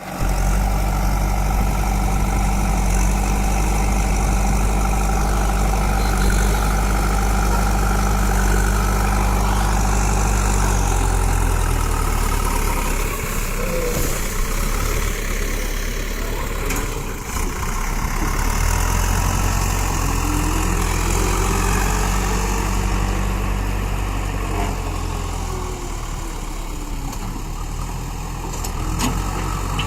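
JCB backhoe loader's diesel engine running steadily, its pitch shifting a couple of times as the machine works the soil, with a few short knocks.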